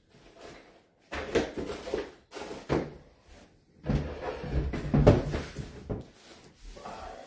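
Irregular knocks, bumps and scuffs of objects being handled and set down on a hard surface, with quiet gaps between them.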